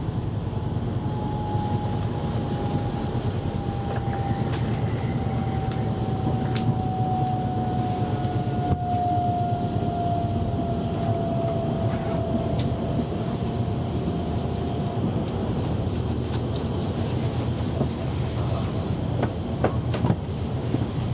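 Copenhagen S-tog electric commuter train heard from inside the carriage: a steady rumble of wheels on rail, with a few clicks. A thin whine falls slowly in pitch and fades out about fifteen seconds in, as the traction motors wind down with the train slowing.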